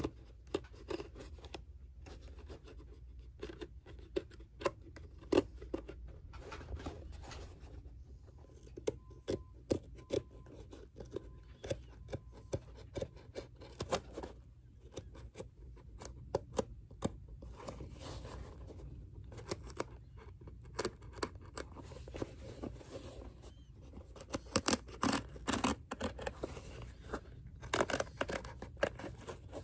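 Irregular snips, clicks and scratches of hand tools and hands working on a leather dress shoe, busier near the end, over a faint steady low hum.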